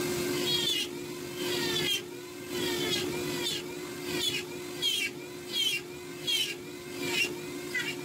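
Dremel flex-shaft rotary tool running with a steady whine while its carving bur cuts hair lines into wood. The cutting noise comes in repeated strokes, a little more than one a second.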